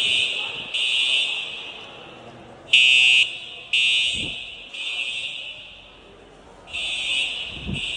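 Building fire alarm horns sounding the evacuation signal: three buzzy blasts about a second apart, then a pause of about two seconds, and the cycle starts again. Each blast trails off slowly after it stops.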